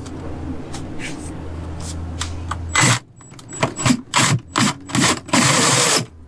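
Cordless drill with a hole saw spinning with a steady hum, then biting into the bus floor in a series of loud, short grinding bursts, the longest near the end, as the drain hole for a shower pan is cut.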